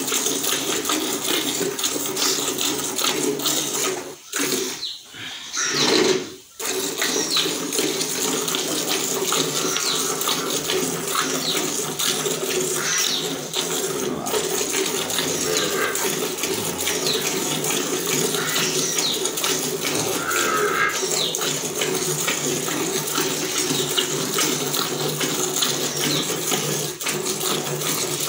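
Hand-milking of a desi cow: rapid, rhythmic squirts of milk from the teats hissing into the milk already in the pail, with a brief break about four to six seconds in.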